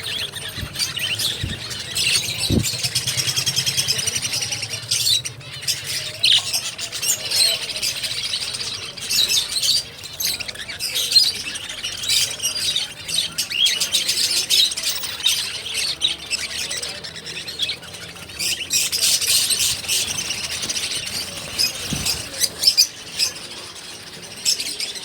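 Many small cage birds chirping and squawking together in a dense, continuous chatter of high calls.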